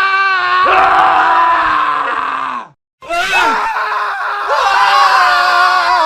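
Men screaming: one long, held scream that cuts off abruptly about two and a half seconds in, then after a brief silence another long scream starts.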